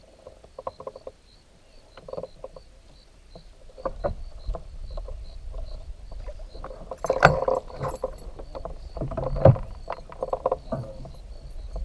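Scattered knocks and clatter of fishing gear against a small boat, with two louder knocks about seven and nine and a half seconds in, over a low rumble that builds from about four seconds in.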